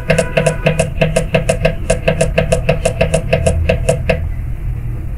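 Rapid run of short clicks, about six a second, from a Selec VAF39A-1 digital panel meter as its up button is held and the CT-ratio setting steps up toward 200. The clicking stops about four seconds in, as the value reaches 200.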